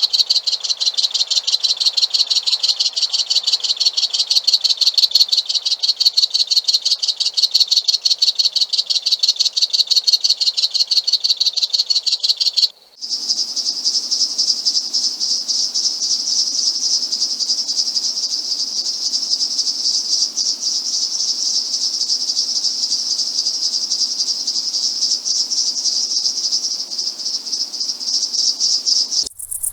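Dense chorus of trilling insects, a fast even pulsing at a high pitch. About thirteen seconds in it breaks off for an instant and gives way to a steadier, slightly higher buzzing insect chorus over faint low background noise.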